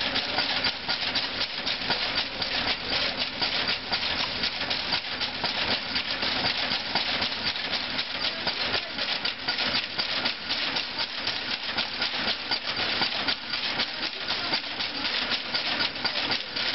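A 1920 bobbin lace machine running, its bobbin carriers and metal mechanism making a steady, rapid clatter of many fast clicks.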